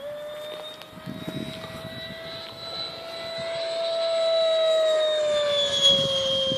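Electric ducted-fan whine from an RC L-39 jet model with a 90 mm Wemotec Midi Fan and an inrunner motor. The high whine rises slightly in pitch and grows louder as the model comes closer, then drops in pitch about five seconds in as it passes.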